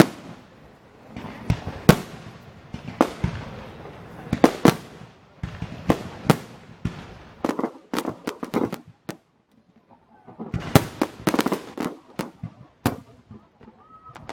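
Fireworks display: aerial shells bursting in rapid, irregular bangs and cracks, each with a short echo. A brief lull about nine seconds in, then a dense volley of bangs.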